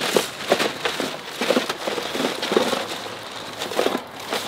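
Plastic carrier bag and food packaging crinkling as they are handled, an irregular run of crackles.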